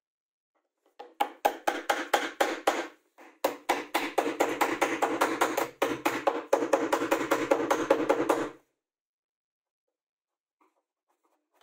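Rapid, even wooden tapping, about four to five sharp knocks a second, in runs with short breaks, that stops abruptly about eight and a half seconds in.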